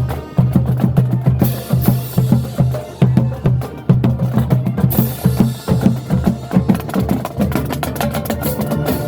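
Marching band playing a percussion-heavy passage: the drumline's bass drums and snares strike in a fast, dense rhythm, with some held instrumental tones joining in the second half.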